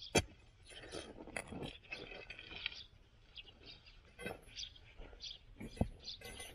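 A steel crowbar knocking and prying at stones and hard earth around a buried iron part. There is one sharp strike just after the start, a few duller knocks later, and soil crunching as the part is worked loose. Birds chirp faintly in the background.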